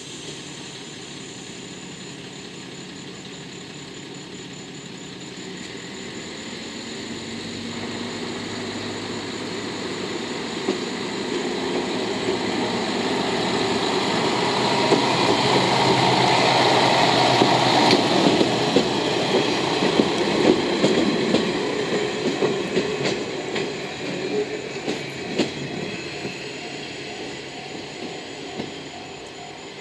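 A KiHa 32 single-car diesel railcar passing: its diesel engine running and its wheels clacking over rail joints, growing louder to a peak about halfway through, then fading as it moves away.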